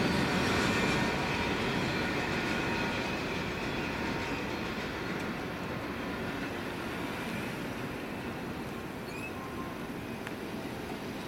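Freight train cars rolling away along the track, the rumble slowly fading as the train recedes.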